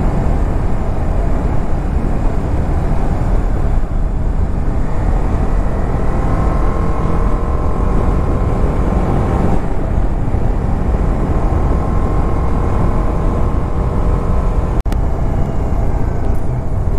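TVS Apache RR 310 motorcycle riding at highway speed: steady wind rush on the microphone with the single-cylinder engine running underneath. The sound cuts out for an instant near the end.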